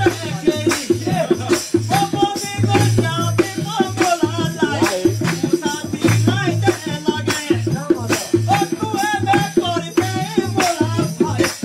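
Live Pahari folk music for a jhuri: a voice singing a gliding melody over a steady, quick percussion beat with a rattling sound.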